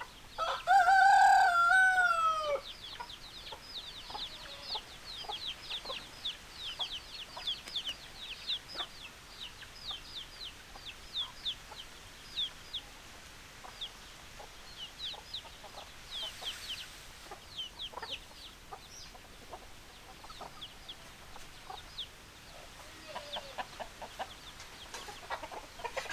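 Chickens: a rooster crows once near the start, a single loud call of about two seconds that drops in pitch at its end. Then a steady stream of short, high peeping calls follows, thinning out in the middle and picking up again near the end.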